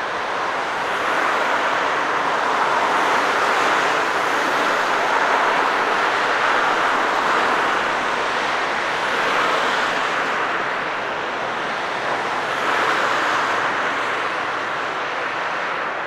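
Jet airliner engines running, a steady rushing noise that swells and eases slowly.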